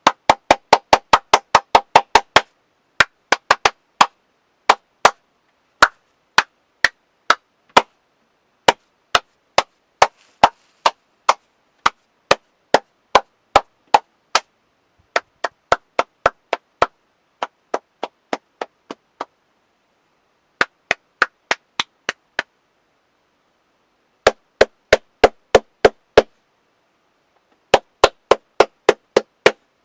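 One person clapping hands alone, in changing patterns: a quick run of about six claps a second at the start, then slower single claps about one a second, softer claps in the middle, and two more quick runs near the end after short pauses.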